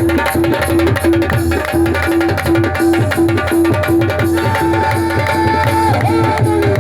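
Qawwali music led by tabla: dense, fast hand-drum strokes over the deep resonance of the bass drum, with a tuned tone pulsing about three times a second. About four and a half seconds in, a long held melodic note joins and bends at its end.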